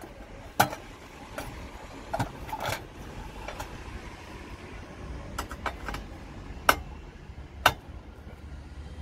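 Scattered sharp metallic clicks and taps from handling a sandwich toaster's sheet-metal heating-element plate and working its screws with a screwdriver, the loudest less than a second in and twice near the end, over a low steady rumble.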